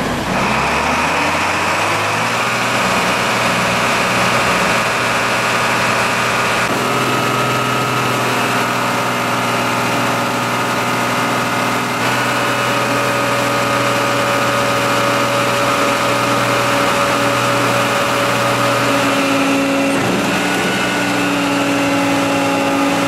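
Concrete mixer truck's diesel engine running at raised revs to turn the drum while it discharges concrete down the chute into the pump hopper; the revs rise over the first second or two, then hold steady.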